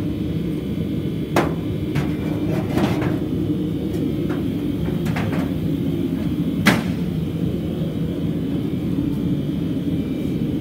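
Steady low workshop rumble with a handful of sharp knocks and clanks scattered through, the loudest about two-thirds of the way in.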